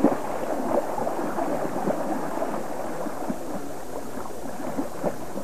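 Creek water running and gurgling, with splashing from a man wading through the shallow current.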